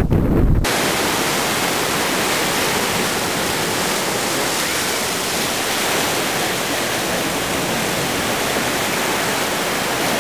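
Wind rumbling on the microphone, cut off sharply under a second in, then a steady, even rushing hiss that does not rise or fall.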